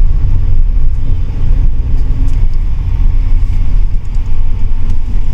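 A moving car's steady, loud low rumble of road and engine noise.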